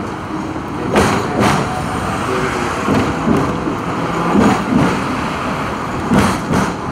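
Hong Kong double-decker electric tram running along street rails: a steady rumble and rattle, with two pairs of sharp knocks from the wheels on the track, about a second in and again near the end.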